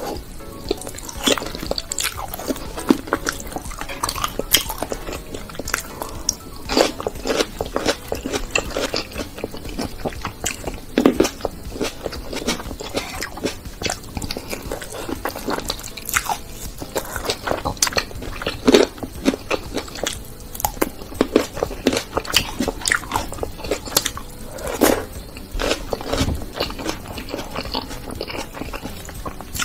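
Close-miked ASMR eating: irregular crunching and chewing of curried meat with a crispy fried topping.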